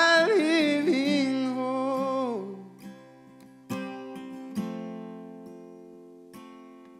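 Worship music: a voice holds a long sung note with vibrato over acoustic guitar for about two and a half seconds, then the guitar strums a few more chords alone, growing softer.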